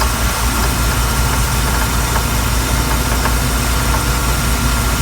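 Mercruiser 5.7 V8 marine engine running steadily.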